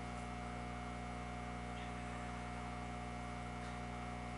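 Steady electrical hum with a faint hiss: room tone with a thin constant tone above the low hum.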